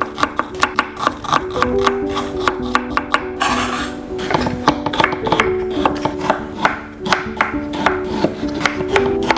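Background acoustic guitar music with a plucked melody, over quick, uneven knife chops on a cutting board.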